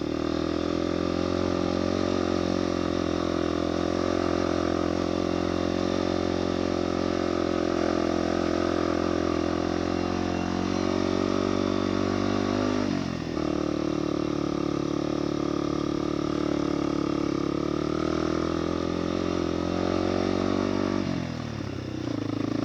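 Motorcycle engine running steadily under load in a low gear while climbing a steep road. Its note drops and picks back up about halfway through, and falls away near the end.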